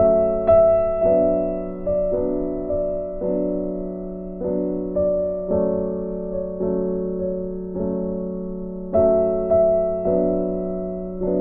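Background piano music: a slow piece with notes and chords struck about once a second, each fading before the next.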